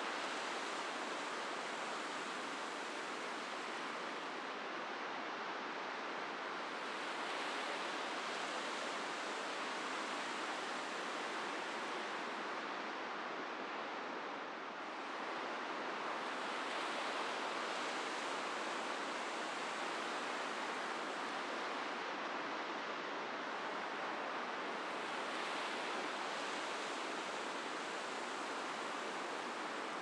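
Ocean surf breaking along the shore, a steady wash that swells and eases about every nine seconds.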